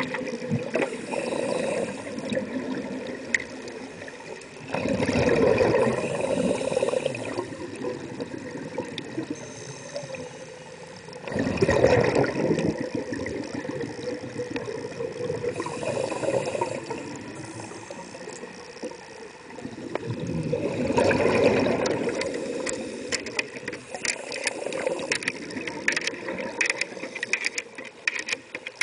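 Scuba diver breathing through a regulator underwater: a rush of exhaled bubbles every four to five seconds over a steady watery background. A run of sharp clicks comes near the end.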